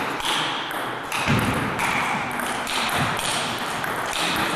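Table tennis rally: the celluloid ball clicking in a quick series of light strikes off the bats and the table.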